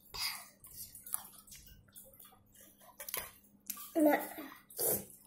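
Rustling and crinkling of a paper food wrapper being handled, with light clicks of cutlery, and a child's short vocal sounds about four seconds in.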